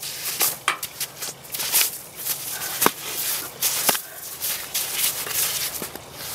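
Footsteps crunching in snow and a stick scraping through the snow while dribbling a ball, in irregular bursts, with two sharper knocks of the stick about three and four seconds in.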